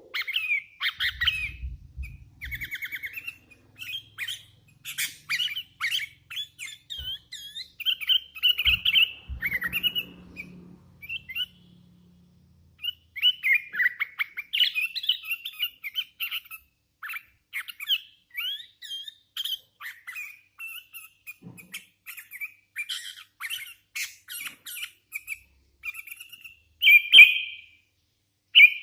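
Young hand-fed sooty-headed bulbul calling in a busy run of varied chirps and squawks, with a short pause a little before the middle and a louder call near the end.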